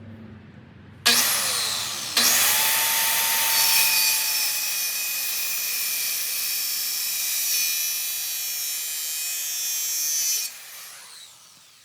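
Electric circular saw switched on about a second in, spinning up with a rising whine and cutting through a wooden board for about eight seconds, then switched off and winding down near the end.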